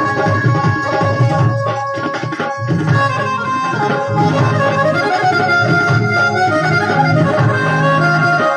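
Roland XPS-10 keyboard playing a melody on one of its Indian tones over a rhythm loop with tabla-like drums.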